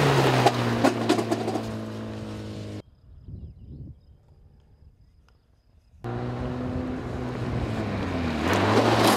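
Rally buggy engine running hard as it passes close, its pitch dropping, with sharp clicks of flung stones. After about three seconds it cuts to a faint, distant engine, then the engine comes back and grows louder as the buggy approaches, its pitch falling again as it passes near the end.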